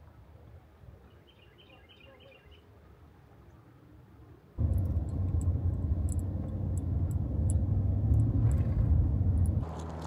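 Faint bird chirps in a quiet outdoor background. About halfway through, a loud, steady low noise with scattered light ticks starts suddenly and drops away just before the end.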